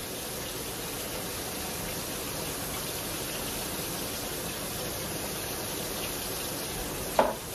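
Pork chops frying in hot grease: a steady, even sizzling hiss. A short louder sound cuts in near the end.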